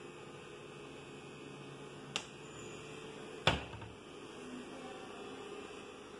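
Two sharp knocks about a second and a half apart, the second louder and more of a thud, over a steady low hum. They come from a white polyester-finish kitchen cabinet door with glass panels being swung shut.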